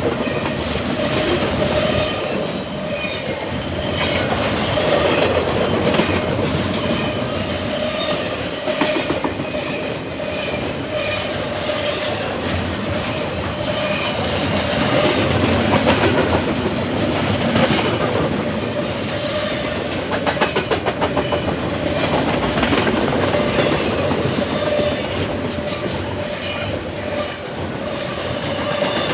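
Double-stack container cars of a freight train rolling past at speed: a steady rumble with wheels clicking over rail joints, clearest about two-thirds of the way in, and a steady ringing tone from the wheels on the rail.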